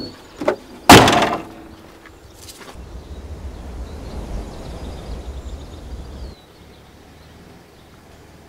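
Two light knocks, then a loud sharp impact about a second in that rings briefly, followed by a low rumbling noise for about three and a half seconds that cuts off suddenly.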